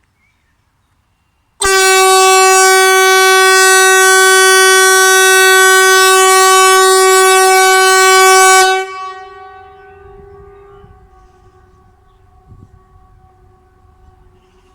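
Kockums typhon compressed-air horn of Sweden's outdoor warning system ("Hesa Fredrik") sounding a test blast at very close range. It is one steady, very loud, rich tone that starts abruptly, holds about seven seconds and cuts off. Fainter horns at the same pitch go on sounding in the distance.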